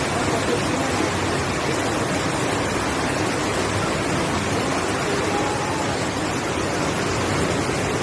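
Loud, steady rush of water from heavy rain and floodwater, an even roar with no breaks.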